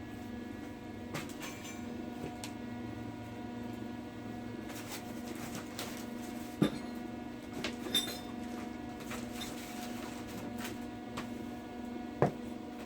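Steady electrical hum with scattered light metallic clicks, and two sharp knocks, one about halfway through and one near the end.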